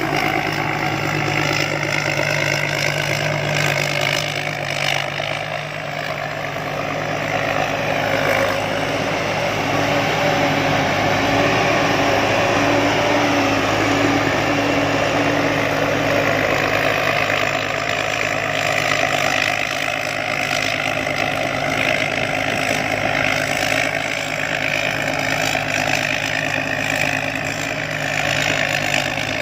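Combine harvester engine running steadily.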